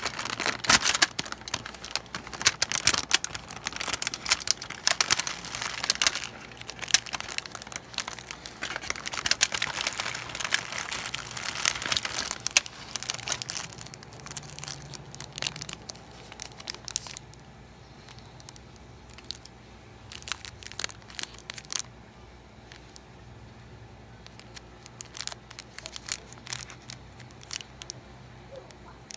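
Plastic snack packaging crinkling as a resealable zip bag is opened and small plastic-wrapped crackers are handled. The crinkling is dense for the first dozen seconds, then gives way to only occasional faint crinkles.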